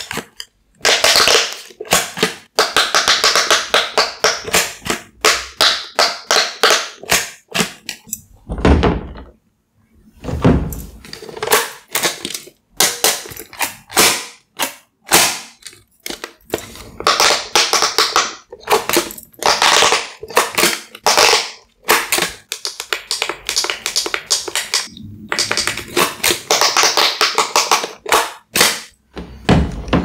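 Fingers pressing the silicone bubble buttons of handheld speed-push pop-it game consoles: a quick, uneven run of taps and soft thunks with short pauses. There are a couple of low thuds about a third of the way in.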